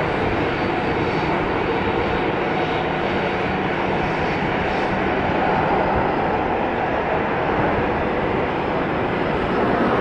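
Boeing 737-800 airliner's CFM56 turbofan engines running at a steady, low thrust as the jet rolls along the runway.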